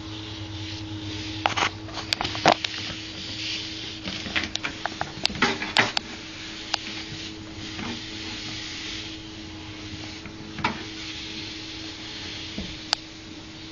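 Treadmill running: a steady motor hum and belt hiss, with a cluster of clicks and knocks over the first six seconds or so and a couple more later on.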